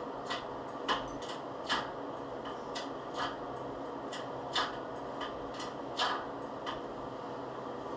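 Irregular light clicks and knocks, about ten in all, the loudest about a second in, near two seconds, and around four and a half and six seconds in, over a steady background hum.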